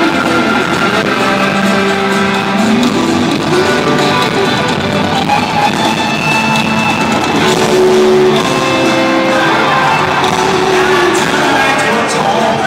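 A live band playing, with guitar among the instruments and held and gliding melody notes over it.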